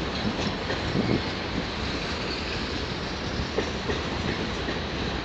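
Freight cars of a passing train rolling on the rails, covered hoppers and loaded centerbeam flatcars: a steady rumble of steel wheels with a few scattered clacks.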